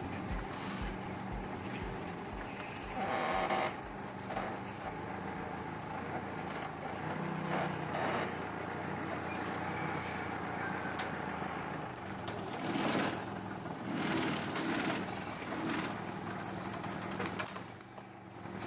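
Forklift engine running steadily, with a regular low pulsing in the first few seconds and occasional short clatters.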